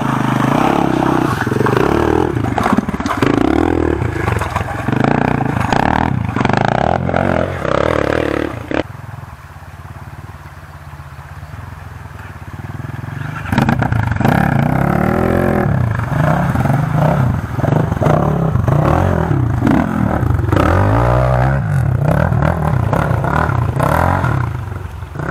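Enduro dirt bike engines revving hard, the pitch rising and falling as the riders work the throttle. The engines drop back and go quieter about nine seconds in, then rev hard again a few seconds later.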